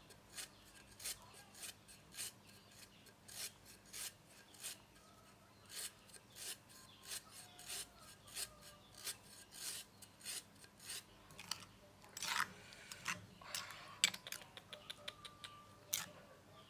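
Rhythmic hand scraping or rasping strokes, a little under two a second, with a few louder, rougher strokes about twelve seconds in.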